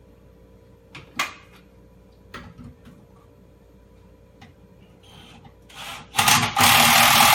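A few light clicks and knocks, then about six seconds in a cordless drill with a Phillips driver bit runs steadily for about two seconds, driving a screw through the drawer unit's frame into the wall cabinet.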